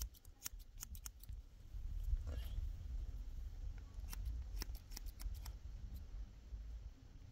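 Hand scissors snipping hair: quick runs of crisp snips in the first second and again around five seconds in, over a low rumble.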